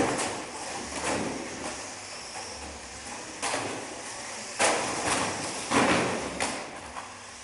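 Radio-controlled banger cars crashing into one another and into the wooden barriers. The sound is a run of sudden knocks and scraping crashes over a steady rumble, and the loudest hits come in the second half.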